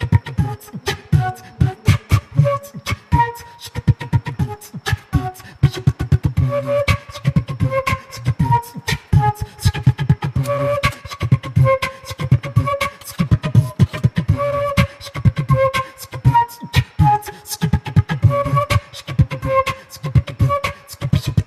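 Background music: a fast percussive beat under a melody of held notes.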